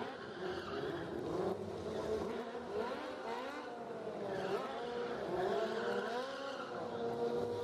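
Sport motorcycle engines revving up and down during wheelie stunts, with several engine notes overlapping.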